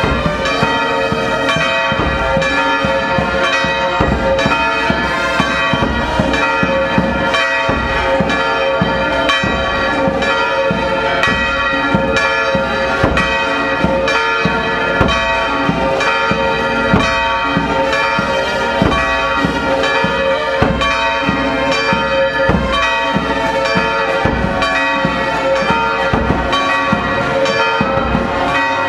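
Church bells pealing continuously, with a marching drum band beating a steady rhythm under them.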